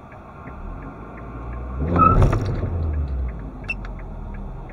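Hyundai Solaris engine heard from inside the cabin, rising in revs about one and a half seconds in, loudest around two seconds, then easing back as the car creeps off at walking pace: a launch for an acceleration run that doesn't want to go.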